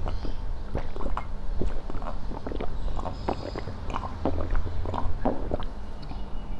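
A man gulping down a drink in a quick run of swallows, about two or three a second, picked up close by clip-on microphones.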